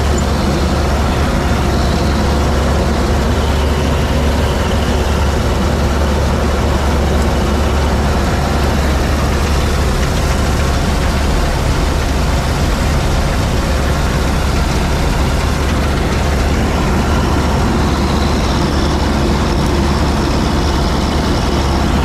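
Massey Ferguson 86 combine harvester running steadily while cutting wheat: a constant, loud, low engine drone with machinery noise that does not change.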